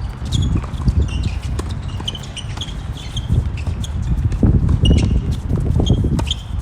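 Wind rumbling on the microphone, rising and falling in gusts, with scattered sharp knocks and brief high squeaks from a tennis rally: ball strikes, bounces and shoes on the court.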